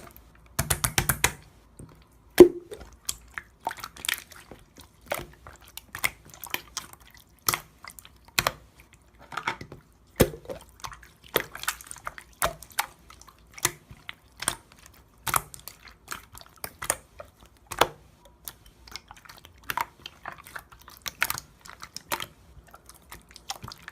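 Irregular sharp clicks and taps, one to a few a second, with a quick flurry of them about a second in.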